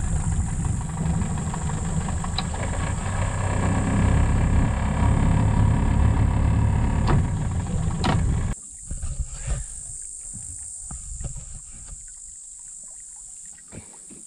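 Small outboard motor on an inflatable dinghy running at idle, a steady low drone that stops abruptly about eight and a half seconds in. A few knocks follow over a much quieter background.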